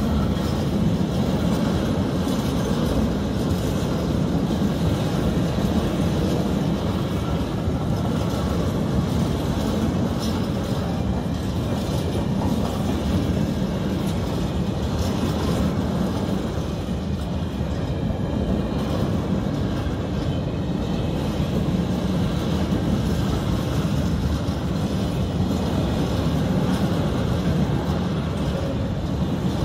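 Freight train of open high-sided wagons rolling steadily past: a continuous rumble of steel wheels on the rails.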